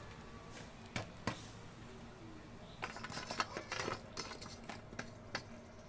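Metal tongs setting lumps of burning charcoal on the metal lid of a dough-sealed cooking pot: sharp clicks and light clatters of tongs and charcoal on metal, a few single ones, then a busy run about three to four seconds in.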